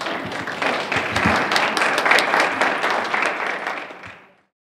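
Audience applauding, many hands clapping together; the applause cuts off suddenly near the end.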